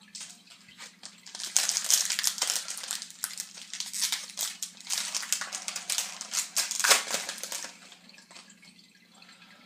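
Wrapper of a 2011-12 Pinnacle hockey card pack crinkling as it is torn open, a dense run of crackles starting about a second and a half in and stopping near the end.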